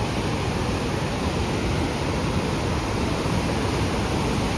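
Floodwater rushing past in a steady, loud, unbroken wash of noise.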